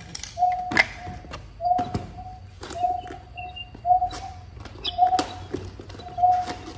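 A short, steady mid-pitched note repeating about one and a half times a second, with sharp knocks about once a second, which are the loudest sounds. It is most likely a bird-lure track looping on a portable bird-trapping speaker.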